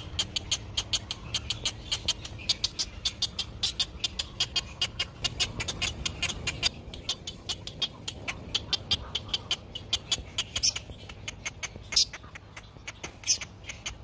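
Great egret nestlings begging: a fast, continuous run of short ticking calls, several a second, with a few louder single calls near the end.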